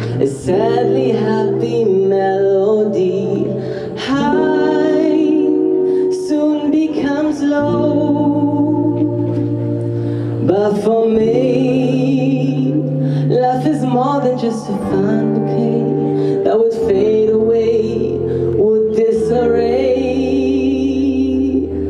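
Live singing into a microphone over sustained accompaniment chords that change every few seconds, the voice gliding and wavering between held notes.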